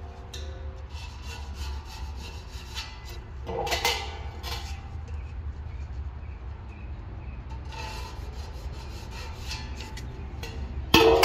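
Pencil scratching in short strokes on the side of a metal beer keg as a line is marked against a straightedge. The keg rings with a clank about three and a half seconds in, and a louder clank with ringing comes near the end.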